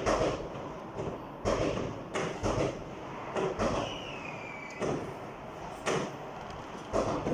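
Fireworks going off all around: about eight irregular bangs, each with an echoing tail, and a faint whistle falling in pitch about four seconds in.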